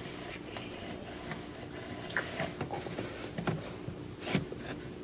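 Quiet room tone with a few faint scattered clicks and knocks.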